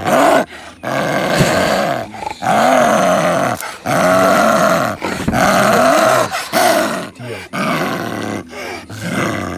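Big cats snarling and growling in a run of loud calls, each about a second long, that rise and fall in pitch with short breaks between them.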